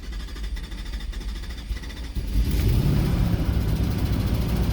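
The 4.7-litre V8 of a 2006 Jeep Commander is running roughly, with a multiple-cylinder misfire (code P0300) that has not cleared with a new engine computer. The rumble gets louder about two seconds in and holds there.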